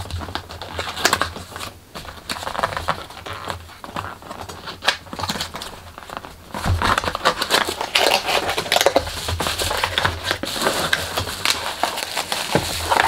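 Cardboard packaging box being opened by hand: irregular scraping and tearing at the flap, then denser crinkling of plastic bubble wrap from about halfway through as the wrapped contents are pulled out.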